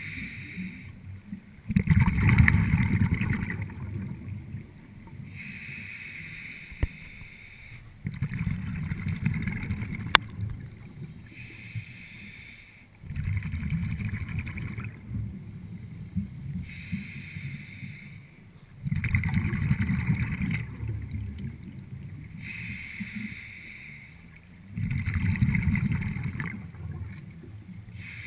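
Scuba diver breathing through a regulator underwater: hissing inhalations alternate with louder rumbling bursts of exhaled bubbles, about five breaths, one every six seconds or so. A single sharp click sounds about ten seconds in.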